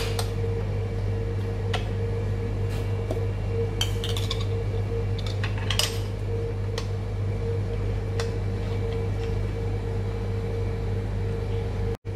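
Scattered clicks and clinks from a KitchenAid meat grinder attachment's parts as the sausage-stuffing tube is fitted and the retaining ring is screwed on by hand. They sound over a steady low hum.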